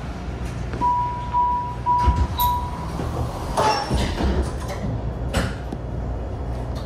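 MARTA rail car's door-closing warning: four short high beeps, then the sliding doors shut with a sharp clunk a second later. Another knock follows about two seconds after, over the stopped train car's steady low hum.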